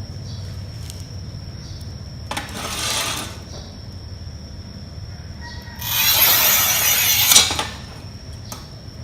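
Manual tile cutter's scoring wheel scratching across the surface of a tile: a short pass about two seconds in, then a longer, louder pass from about six seconds in.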